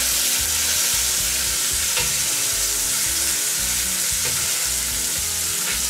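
Pork cheeks sizzling steadily as they sear in hot oil in a cast-iron Dutch oven, with a few light clicks.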